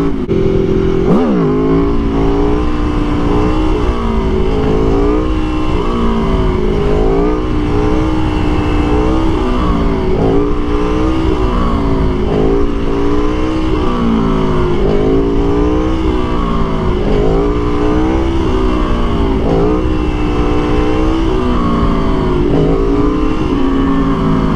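Aprilia Tuono V4 1100 engine under riding load, its pitch rising and falling every second or two as the throttle is worked to hold a long wheelie, with steady wind rush. About a second in, the revs climb quickly.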